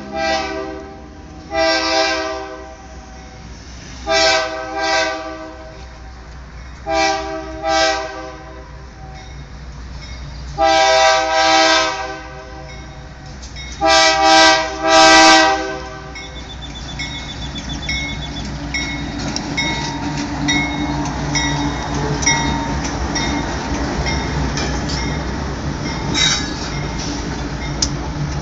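Lead GE AC4400CW diesel locomotive's air horn sounding a series of chord blasts of varying length for the grade crossing, the longest about ten seconds in and the last a quick cluster near fifteen seconds. After that the two light engines pass close by: the diesel engines run and the wheels click over the rail joints.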